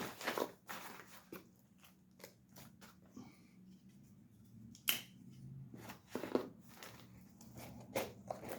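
Scattered light clicks and taps of small knife parts and a box being handled and packed away, with a few sharper knocks about five, six and a half and eight seconds in.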